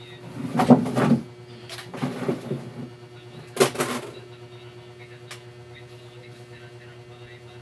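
Three bursts of clattering and rustling as tools and parts are handled on a workbench, in the first four seconds, then a single click a little later, over a steady low hum.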